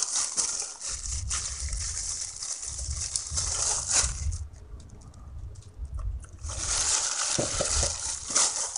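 Plastic-gloved hand mixing and squeezing moist grated coconut and glutinous rice flour dough in a stainless steel bowl: irregular wet squishing and rustling, quieter for a moment about halfway through.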